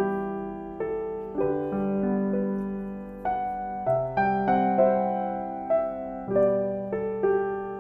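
Background music: a gentle solo piano piece, notes and chords struck one after another and left to fade.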